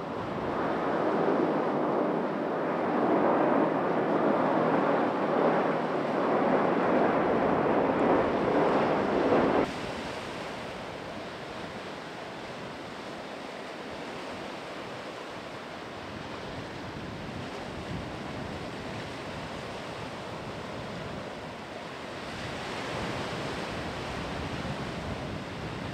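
Steady rushing roar of an airliner's jet engines on approach, loud for the first ten seconds or so and cutting off abruptly. After that comes a quieter steady rush like wind on the microphone, swelling slightly near the end.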